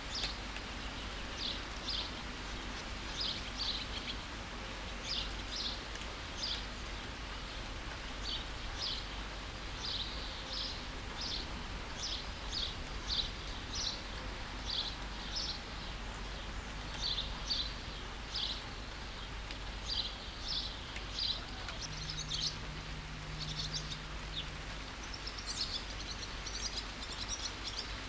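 Steady rain hiss under a bird repeating short high chirps, often two close together, about once a second, turning into a denser twittering near the end.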